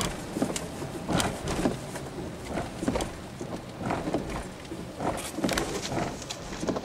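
Car interior noise while creeping up to a toll booth in the rain: a low steady hum with scattered light taps and clicks, about two a second, at irregular spacing.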